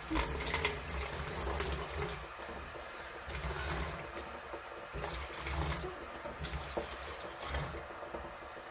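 Distilled water pouring from a jug into a plastic pitcher, an uneven gurgling splash as the pitcher fills.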